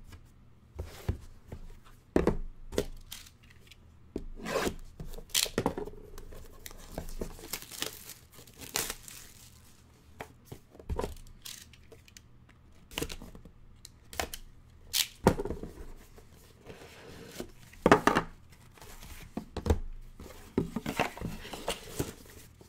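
Plastic wrapping torn and crinkled while a cardboard trading-card box is opened and handled: a long run of irregular sharp crackles and rips, the loudest a little past the middle.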